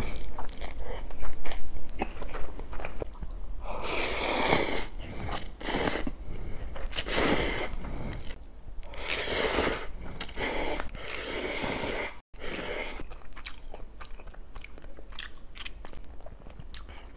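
A person slurping instant ramen noodles from a cup bowl in a series of long slurps, then quieter chewing over the last few seconds.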